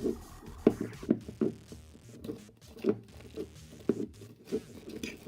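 Homemade glue slime being squeezed and stretched in the hands, giving irregular wet squelches and small pops, one or two a second.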